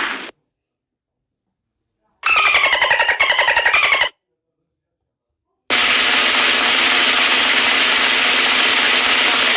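Two separate sound-effect clips with dead silence between them. First comes a burst of about two seconds of very rapid pulses with a falling tone. Then an even, steady hiss-like noise lasts about four seconds.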